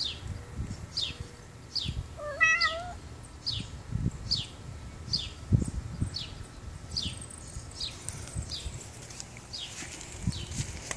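Bengal cat meowing once, a short wavering call about two seconds in. Behind it runs a steady string of short high chirps, about two a second, over a low rumble.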